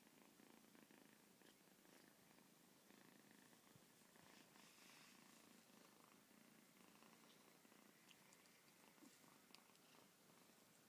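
Very faint, steady purring of a Persian kitten, with a few soft ticks and taps.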